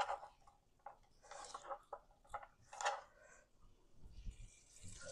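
Faint kitchen handling: a few light clicks and brief rustles of dishes and utensils being moved.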